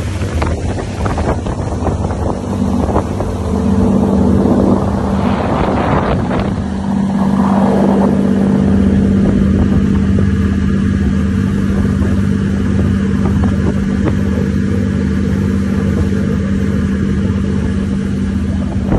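Motor yacht running at speed: the steady drone of its engines over the rush of the churning wake, with wind on the microphone. The water rush swells for a few seconds about a third of the way in.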